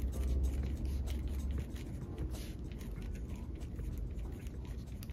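Pen writing on a paper mailer envelope: a run of short, quick scratching strokes. A low rumble sits underneath for the first second and a half.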